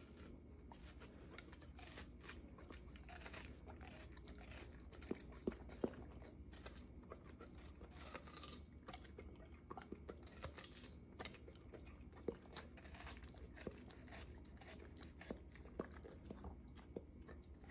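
Black and tan coonhound chewing and crunching watermelon flesh from a hand-held slice: a steady run of small wet crunches and clicks of jaws and tongue, with two louder bites about five and a half and six seconds in.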